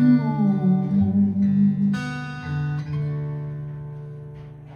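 Acoustic guitar playing between sung lines: a few plucked chords, the last left ringing and fading away over about two seconds. The tail of a sung note is heard at the very start.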